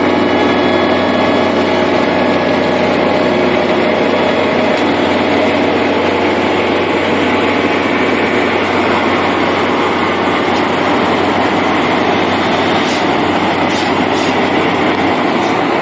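Heavy construction machinery running steadily, a dense, even engine and mechanical noise.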